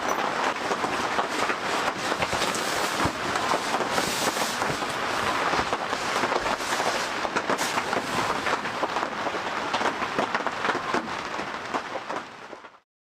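Heavy rain falling, a dense hiss of many sharp drop hits on a close surface, cutting off abruptly near the end.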